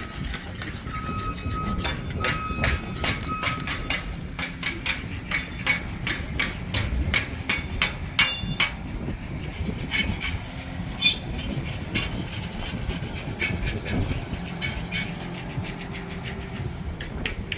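Construction noise at a concrete pour: a truck engine running, an intermittent reversing beeper in the first few seconds, and a quick run of sharp taps or knocks, about two or three a second, thinning out after about nine seconds.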